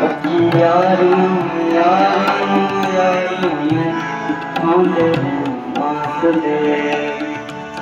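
Tabla strokes keeping a rhythm under a harmonium, with a wordless sung melody gliding and bending in pitch above them, the lead-in to a Punjabi song.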